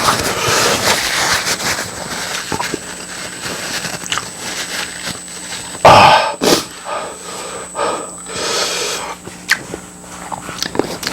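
Close-up eating sounds of a person working through very spicy fire noodles and pig's feet: slurping, chewing and heavy noisy breathing against the heat, with one loud, sharp mouth sound about six seconds in.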